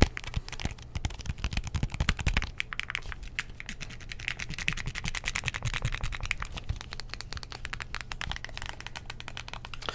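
Buttons on a TV remote being pressed rapidly, a dense run of small plastic clicks, many a second. There are heavier, deeper taps in the first couple of seconds.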